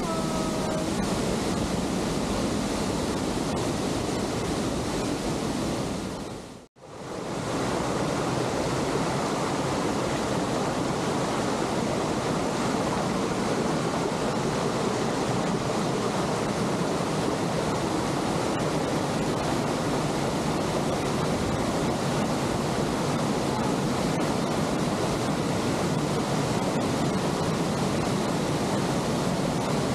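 Steady rush of a waterfall and of a stream tumbling over rocks, cutting out briefly about seven seconds in and then carrying on unchanged.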